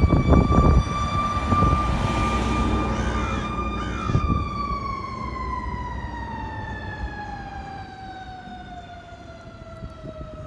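Fire engine's siren held on one steady high note, then slowly winding down in pitch through the second half, fading as the truck drives off.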